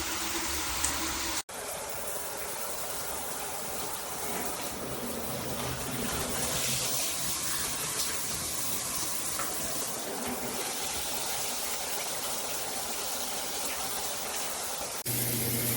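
Water spraying steadily from a shower head. There is a brief break about a second and a half in.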